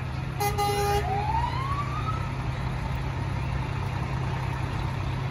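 A truck's horn gives a short, sharp-edged blast just under a second in, followed by a siren-like tone rising in pitch for about a second and a half. Diesel truck engines run low and steady underneath.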